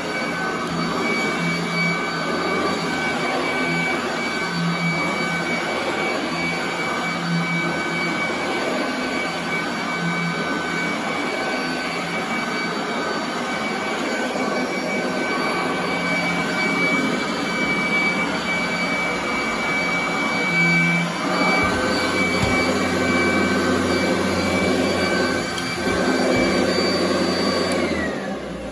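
Royal commercial upright vacuum cleaner running on carpet, a steady high motor whine that shifts as it is pushed back and forth. Near the end it is switched off and the whine falls away as the motor spins down.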